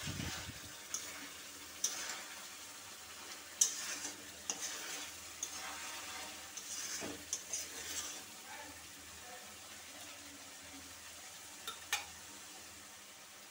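A spatula stirring prawns through a thick spiced masala in a metal pan, over a faint steady sizzle of frying. Scrapes and light clicks of the spatula on the pan come at irregular moments, busiest in the middle, with one sharp click near the end. The masala is frying down to the point where the oil separates out.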